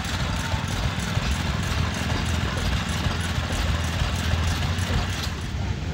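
An old engine running steadily at low speed: a low rumble with a regular light ticking over it.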